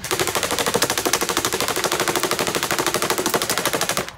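Airsoft gun firing full-auto at a cardboard toy box: a rapid, even stream of shots that stops suddenly after about four seconds.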